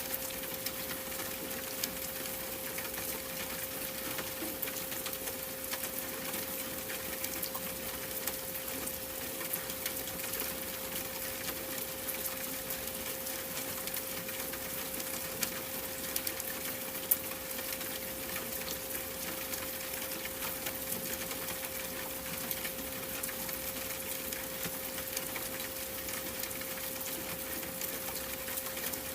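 A steady 528 Hz pure tone held without change over an even hiss of rain, with scattered faint ticks.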